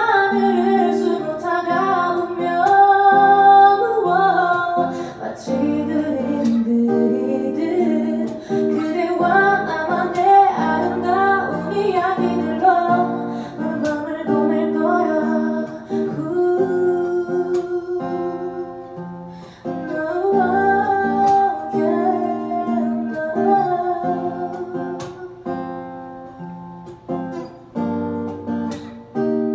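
Live acoustic performance: a woman singing a slow pop song into a microphone, accompanied by a plucked acoustic guitar.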